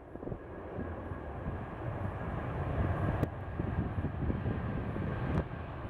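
Airbus A320 jet engines running at taxi power as the airliner rolls past: a steady rushing noise with a faint high whine that swells a little toward the middle, under gusty wind rumble on the microphone. Two brief clicks come about three and five seconds in.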